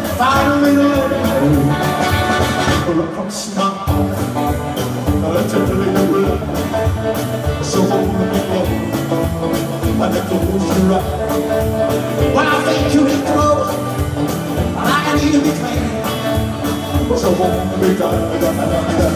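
Live rock-and-roll band playing: electric guitars, drum kit and keyboard with a steady driving beat.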